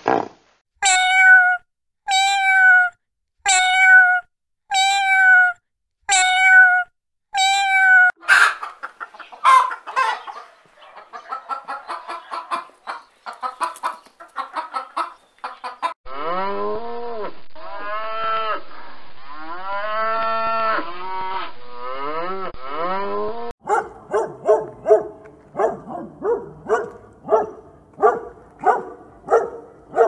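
A run of different animal calls, one recording after another. First about seven evenly spaced high calls, one a second, then a dense jumble of quick calls and clicks. Next a calf mooing over and over in short arching calls, and last a fast series of short calls, about two a second.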